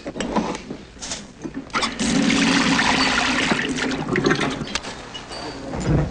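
Tap water running into a stainless-steel sink, starting about two seconds in and easing off a couple of seconds later, after a few light clicks.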